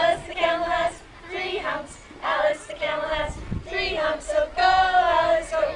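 A group of children's and adults' voices singing a simple children's song together in unison.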